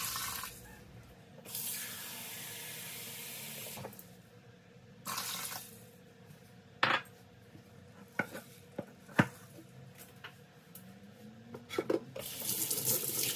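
Water running from a kitchen tap in several short spells, the longest about two seconds, with a few sharp clinks in between.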